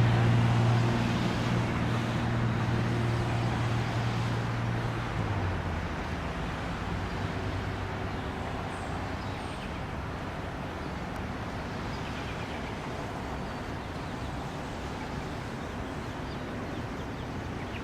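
Low, steady engine drone of a passing motor vehicle, fading away about five seconds in and leaving a steady background hiss.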